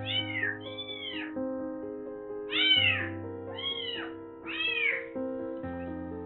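A cat meowing five times, each high meow rising and then falling in pitch, over soft piano background music.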